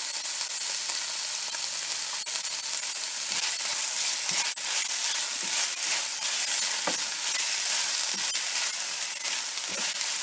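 Chopped tomatoes, onion and masala paste sizzling in hot oil in a stainless steel pan as the tomatoes fry down to a pulp: a steady frying hiss. A spatula stirs through them, scraping the pan now and then.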